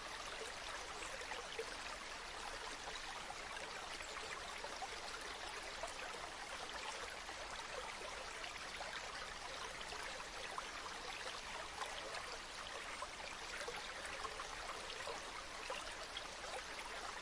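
Stream water flowing over stones, a steady babbling and trickling with many small splashes and no change in flow.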